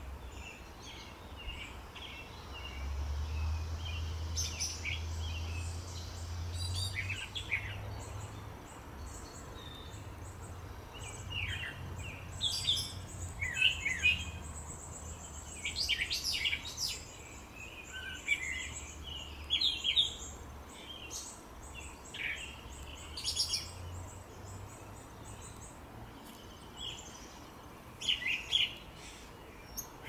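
Small songbirds chirping and calling: a scatter of short, high chirps and call notes, busiest in the middle, over a faint low steady hum.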